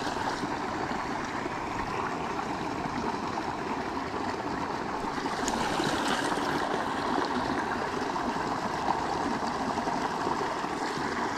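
A small creek running steadily over stone and concrete into shallow man-made pools, an even rush of water.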